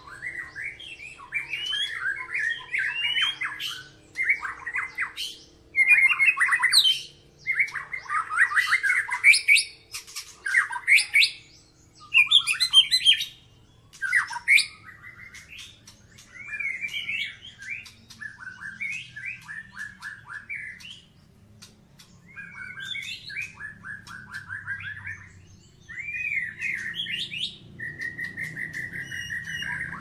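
White-rumped shama (murai batu) singing: fast, varied phrases of whistles, trills and harsh notes, coming in bursts of a second or two with short pauses, and a held whistle near the end.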